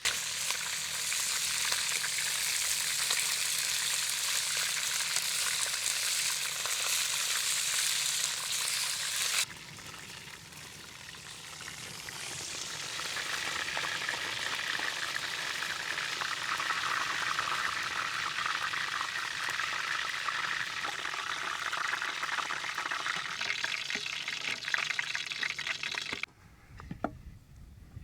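Food sizzling as it fries in hot oil. The sizzle breaks off sharply about nine seconds in, builds back up over the next few seconds and runs steady, then cuts to a much quieter stretch with a few light clicks near the end.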